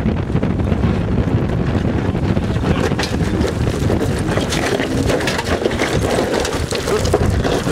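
Nissan Xterra driving over a rocky wash: tyres crunching over gravel and stones, with a steady rumble and many small cracks and pops throughout, and wind buffeting the microphone.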